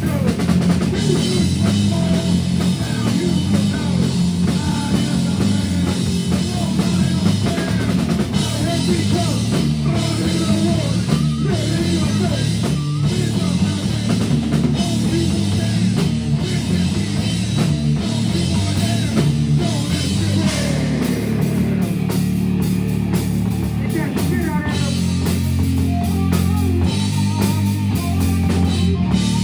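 Live rock band playing loudly: distorted electric guitars, bass guitar and a full drum kit.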